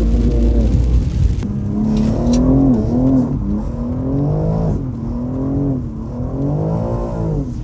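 BMW M3 engine revving, its pitch climbing and dropping several times as the throttle is worked.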